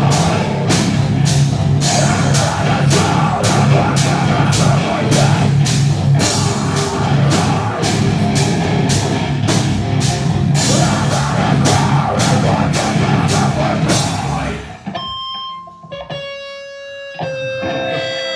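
A live heavy metal band is playing distorted guitars and drums, with hits landing at a steady pulse. About fifteen seconds in the full band stops, leaving a few clean, held guitar notes ringing.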